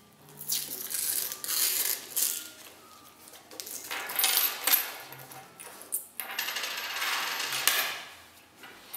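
Paper coin-roll wrapper rustling as it is torn open, then a stack of Swiss 10 Rappen coins sliding out and clinking onto a wooden table, with high metallic rings from about four seconds in.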